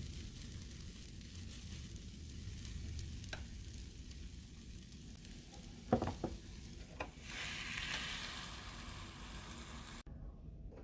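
Food sizzling in a frying pan, with a couple of sharp clicks about six to seven seconds in. The sizzle then grows louder and brighter and cuts off suddenly near the end.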